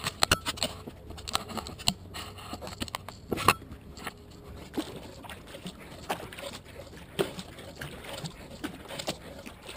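Knocks, clicks and scrapes of a hand handling a kayak's deck-mounted action camera, the loudest knock about three and a half seconds in. After that come softer splashes and drips of kayak paddle strokes in the water.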